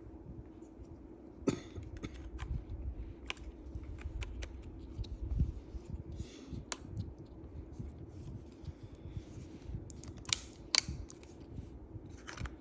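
Sharp clicks and small plastic and metal knocks, scattered irregularly, of hands handling the parts of a Dell computer during a RAM upgrade. They come over a steady faint hum, with the loudest pair of clicks near the end.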